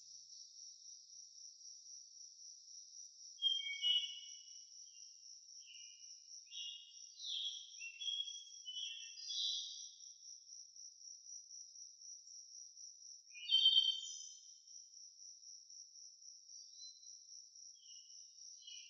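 An insect trills steadily in high, even pulses. Short bird chirps and twitters sound over it, the loudest a cluster of calls about two-thirds of the way through.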